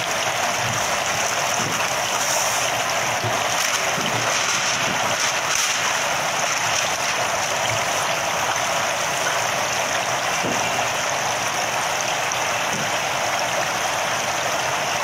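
Steady splashing of thin water jets pouring into a live crab holding tank.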